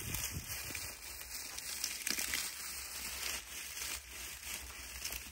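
Dry straw and reed stalks crackling and rustling as they are handled and pressed around a metal tin, with irregular small snaps.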